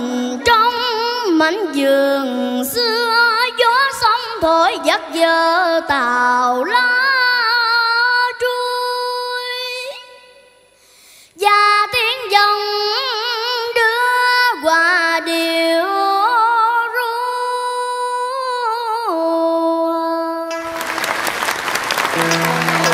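A young girl singing a Vietnamese cải lương song solo in a clear child's voice with a wavering vibrato, breaking off briefly about ten seconds in and then singing on. Near the end the audience bursts into applause.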